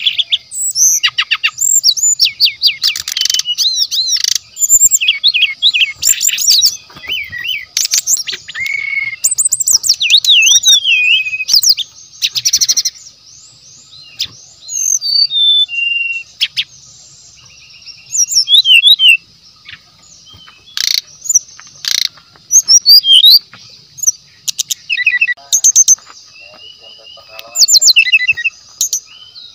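A songbird sings in loud, rapid bursts of varied whistles, trills and sharp chips, with short pauses between phrases. A steady high background hum runs beneath the song.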